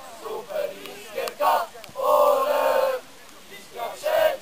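Football supporters in the stand chanting and shouting together, in short bursts with one longer held chant about two seconds in.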